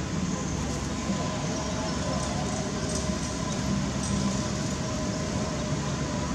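Steady low rumble of distant road traffic under a continuous outdoor hiss, with a faint steady tone running through it.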